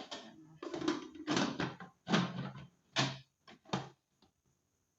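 Lid of an electric pressure cooker being turned and locked into place: a series of clunks and scrapes, about six in all.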